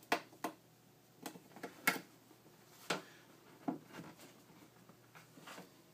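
Sharp clicks and taps of small cabinet hinge hardware being handled, about nine at irregular intervals, the loudest about two seconds in.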